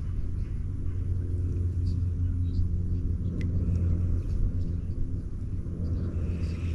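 Steady low motor hum as the kayak is driven along, holding an even pitch.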